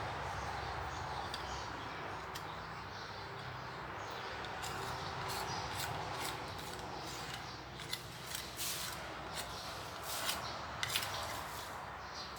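Scattered light clicks and taps of a utensil against a dish, starting about four seconds in, over a steady background hiss.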